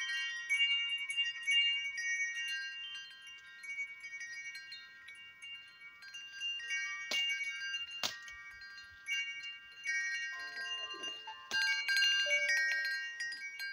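Chimes ringing: many overlapping high notes that ring on and fade, with two sharp clicks about seven and eight seconds in and lower notes joining in the second half.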